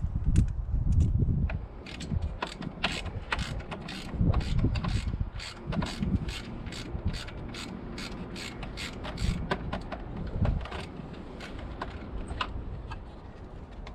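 Hand ratchet wrench clicking in quick, irregular strokes as bolts are turned, with low knocks of tools and parts being handled.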